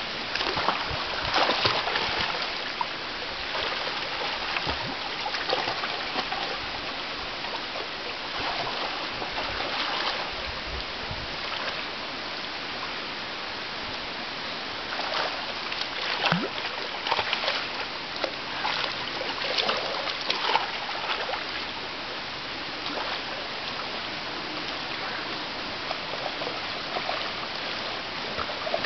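Shallow running water flowing steadily, with splashing as two European otters wrestle and tumble in it. The splashes come in clusters, loudest a second or two in and again between about 15 and 21 seconds in.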